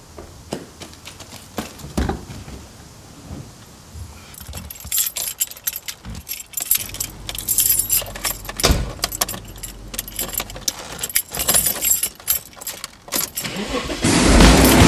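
Keys jangling and clicking in irregular handfuls, busiest over the middle of the stretch. About 14 s in, a loud steady sound cuts in.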